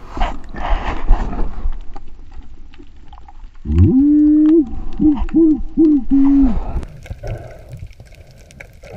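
A couple of seconds of rushing water noise, then a diver's voice hooting a single held note that breaks into several quick pulses, a cheer heard with the camera in the water.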